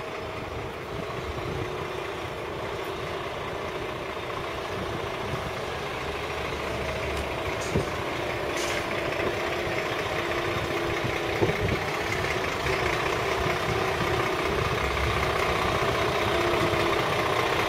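Diesel engine of a DAF lorry pulling a refrigerated semi-trailer at low speed through a turn. It grows steadily louder as the lorry comes closer, over a steady drone.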